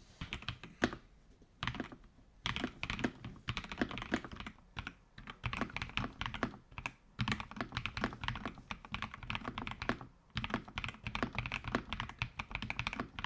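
Typing on a Keychron V6 Ultra 8K full-size mechanical keyboard: quick runs of keystrokes with short pauses between them, after a single keypress about a second in.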